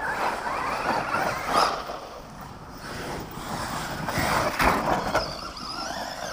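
Radio-controlled off-road car driven over dirt, its motor whine rising and falling as the throttle is worked, with the noise of its tyres on the track. It gets louder about a second and a half in and again around four and a half seconds.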